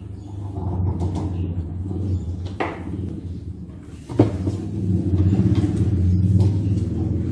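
A low, uneven rumble with two sharp knocks about a second and a half apart; the second knock is the loudest.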